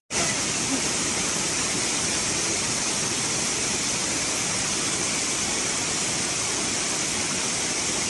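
Steady rush of a waterfall's cascades spilling over mossy rock steps, an even hiss of falling water with no change in level.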